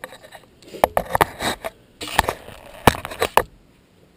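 Large plastic carboy being handled: a run of sharp knocks and clunks with some rustling clatter, from about a second in until shortly before the end.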